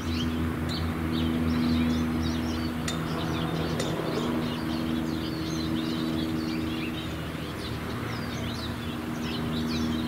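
Many small songbirds chirping and twittering in quick, overlapping notes, over a steady low hum.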